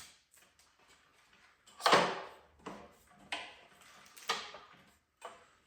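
Several separate clunks and knocks as parts of a Dewalt DWX724 miter saw stand are handled, the loudest about two seconds in, with a few lighter ones after it.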